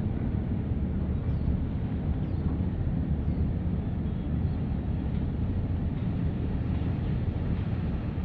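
Steady low rumble of wind buffeting the microphone by open water.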